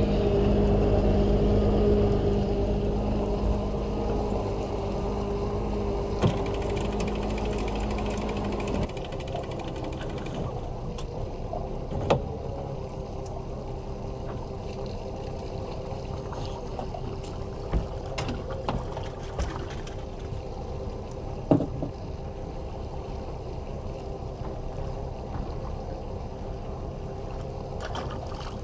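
Boat motor running steadily at trolling speed with water noise around the hull; its low rumble drops about nine seconds in, and there are a few scattered clicks and knocks.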